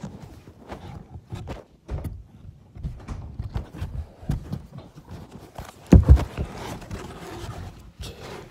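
Muffled knocking, scraping and rustling against cardboard from someone moving inside a closed, taped box, with two heavy thumps about six seconds in.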